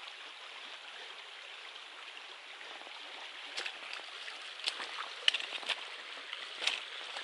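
Shallow creek running steadily over rocks. From about halfway in, a few short crunches, footsteps on the loose flat stones of the creek bank.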